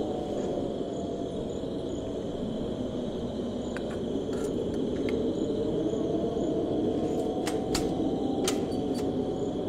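Steady low rush of desert wind over a constant high trill of crickets. Several sharp clicks come about four to five seconds in and again near the end, from the lid of an electric gooseneck kettle being opened and a Cuisinart toaster's lever being worked.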